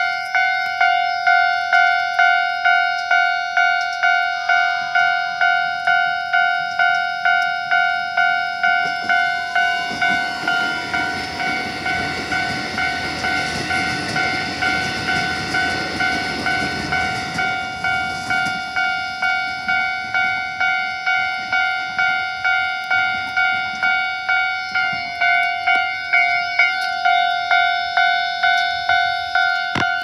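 Japanese level-crossing warning bell ringing steadily, an electronic ding about twice a second. A Keikyu electric train passes over the crossing, its running noise swelling for several seconds in the middle and then fading.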